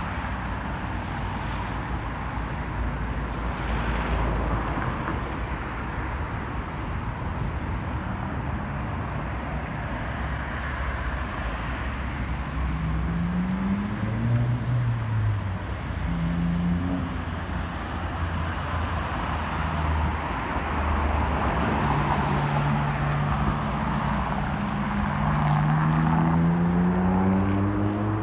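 Road traffic passing on a city street, a steady rumble of cars and tyres. Vehicles accelerate twice, their engine pitch rising: once around the middle and again, longer, near the end.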